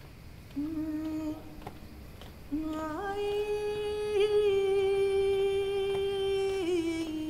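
A solo voice singing wordless, hummed notes with no words. There is a short held note about half a second in. Just before three seconds a second note steps up and is held steadily for nearly four seconds, then drops a step near the end.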